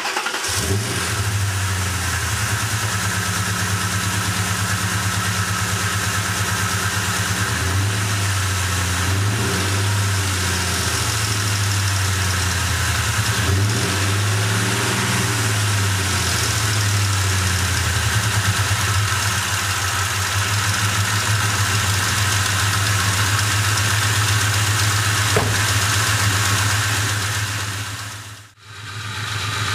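Ford Mustang GT's 4.6 L two-valve V8 idling with a ticking noise. The owner takes the tick for a loose passenger-side timing chain, from a failing tensioner or a worn chain guide. The idle wavers up and down in the middle, and the sound drops away briefly near the end.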